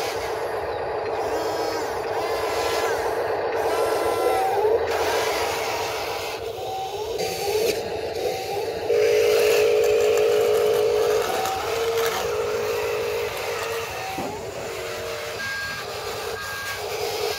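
Remote-control wheel loader running, with a steady mechanical hum and short whistling tones over it that grow louder and more regular from about nine to eleven seconds in.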